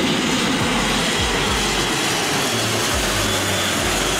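Airbus A400M's four turboprop engines and propellers making a loud, steady noise as the transport plane flies low overhead, with the bass notes of background music running underneath.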